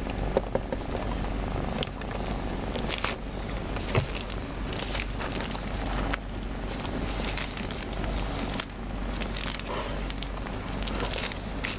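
Black-and-white cat purring steadily, a low even rumble, while being stroked, with crackling and clicking of hand and fur rubbing close to the microphone.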